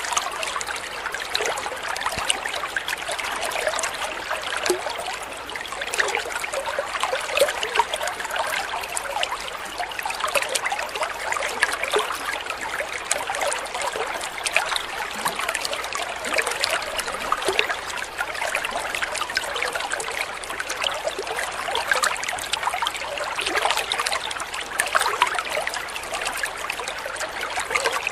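Water spilling from a small spout into a garden koi pond: a steady trickling splash made of many small, quick droplet splashes, with no pauses.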